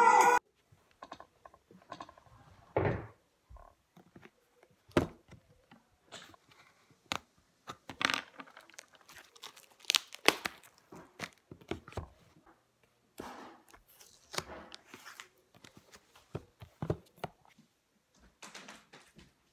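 Plastic packaging crinkling and tearing as a boxed DNA test kit is unwrapped by hand, with scattered light knocks and clicks of the box and packaging against a table.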